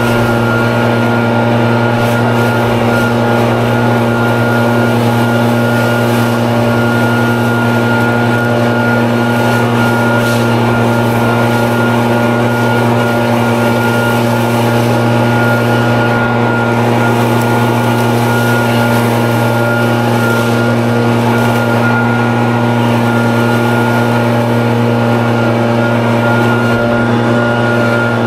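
Leaf blower running steadily at one unchanging pitch, its engine tone over the rush of air, with no throttle changes.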